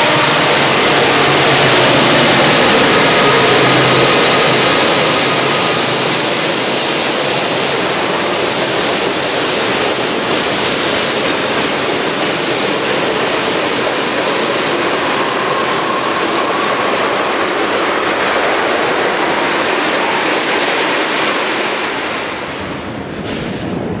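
Freight train rolling past at close range. The trailing diesel locomotive's engine fades in the first few seconds, then freight cars, mostly tank cars, roll by with steady wheel-on-rail noise and a faint thin whine now and then. The noise drops somewhat near the end.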